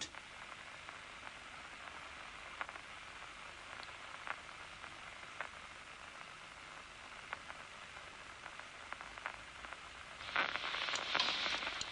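Amplified action-potential spikes from a locust's DCMD nerve cell played as sound: a steady hiss with scattered single clicks, then a short, dense crackling burst about ten seconds in as the moving target spot drives the neurone.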